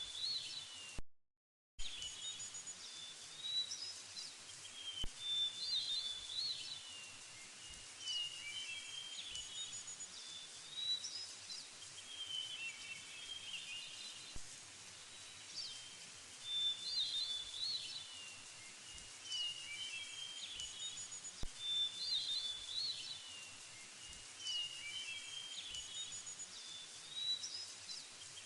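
Songbirds singing over a steady background hiss: short phrases of chirps and trills come every few seconds. The sound cuts out completely for under a second about a second in.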